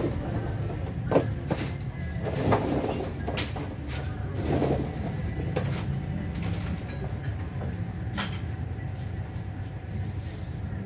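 Shop ambience: a steady low rumble with scattered short clicks and knocks.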